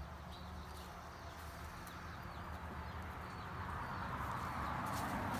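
Faint, short, high bird chirps repeating about two or three times a second, over a low outdoor hum; a broad rushing noise swells up over the last couple of seconds.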